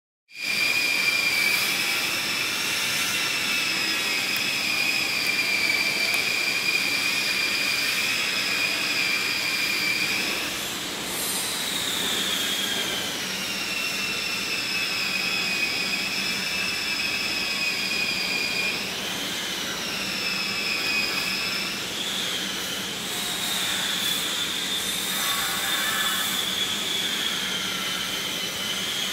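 Large diesel generator set running steadily, a loud mechanical drone with a high-pitched whine on top that shifts in pitch a few times.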